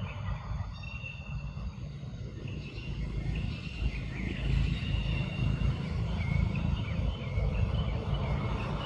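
Outdoor ambience: a steady low rumble, with short high chirps repeating faintly above it.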